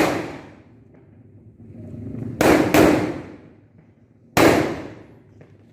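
Large petasan firecrackers exploding one by one: a blast at the start, two in quick succession about two and a half seconds in, and another about four and a half seconds in, each dying away over about a second.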